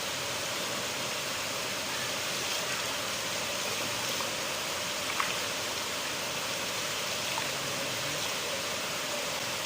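Flowing river water rushing steadily, an even hiss with a few small splashes and clicks.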